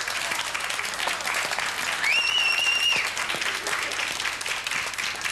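Studio audience applauding after a song. About two seconds in, a single high whistle rises and is held for about a second over the clapping.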